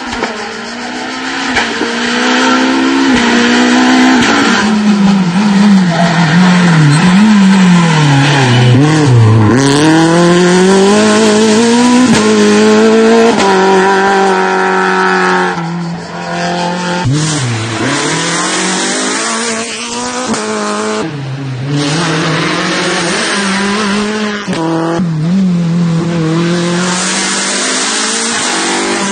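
Renault Clio rally car driven flat out, its engine pitch climbing through each gear and dropping sharply on lifts and downshifts several times. It is loudest in the first half as it passes close, and less loud after a cut partway through.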